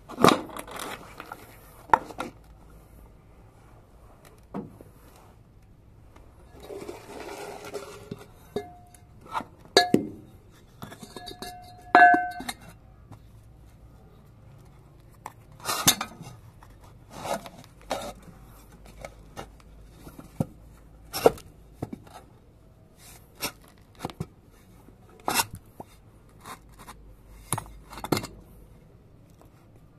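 Metal brake-servo parts and tools being handled: irregular clinks and knocks of metal on metal, two of them ringing briefly, with a short stretch of scraping and rattling about seven seconds in.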